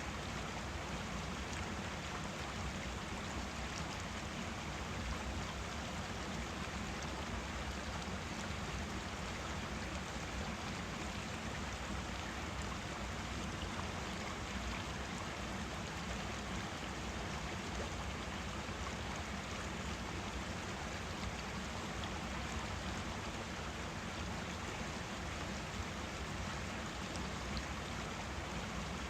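Forest stream running over rocks: a steady, even rush of water with no changes.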